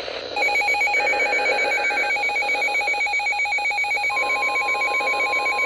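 Weather radio receiver going off for a severe thunderstorm warning: its alarm beeps in a rapid, steady warble. Early on a short burst of the broadcast's two-pitch SAME data tones plays under it, and about four seconds in the steady 1050 Hz NOAA warning tone comes in.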